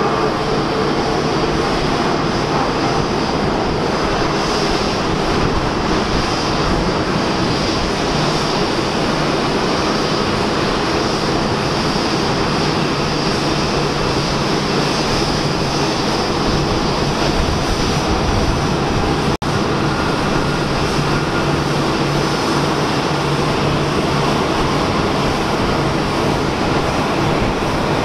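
Steady roar and whine of jet airliner engines on the airfield below. It breaks off for an instant about two-thirds of the way through.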